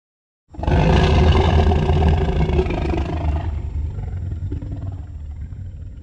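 Custom Ichthyovenator dinosaur roar sound effect, built from layered and slowed-down animal recordings. One long, deep roar starts suddenly about half a second in, is loudest over the next two seconds, then slowly dies away.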